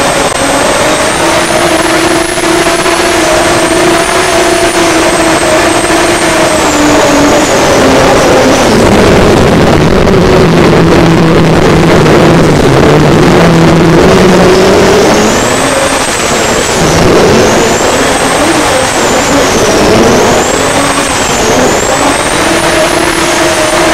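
Turbocharged, alcohol-fuelled racing powerboat engine running hard, heard from onboard, with a high turbo whine that rises and falls with the revs. The revs drop for several seconds around the middle, then climb back with a few surges.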